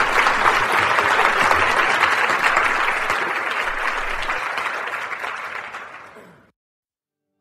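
Audience applauding. The clapping slowly fades over the last few seconds and cuts off abruptly about a second before the end.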